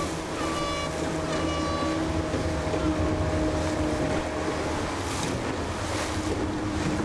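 Wind buffeting the microphone and water washing against a boat hull, over a low steady motor hum. Two short high tones sound about a second apart near the start.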